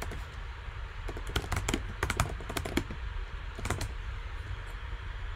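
Typing on a computer keyboard: several short runs of quick key clicks with pauses between them.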